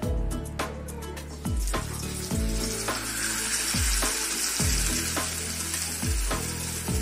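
Whole masala-coated red snapper sizzling in hot oil in a frying pan, the sizzle starting about three seconds in as the fish goes into the oil. Background music with a steady beat plays throughout.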